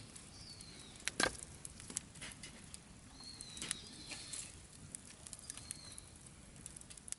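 Quiet outdoor ambience with a bird's thin whistled calls, heard three times, and scattered sharp clicks and knocks, the loudest a little over a second in.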